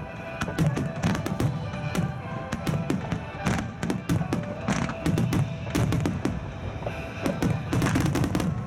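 Starmine fireworks barrage: aerial shells bursting in quick succession, many sharp bangs, over music played for the show.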